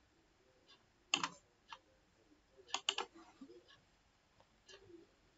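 About seven faint, sharp computer mouse clicks, scattered and irregular, the loudest about a second in and a close pair near three seconds.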